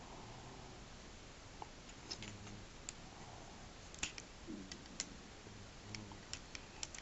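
Faint clicks and taps of a small plastic X-Wing toy being handled and turned in the fingers: a scattering of sharp little clicks, coming more often in the second half.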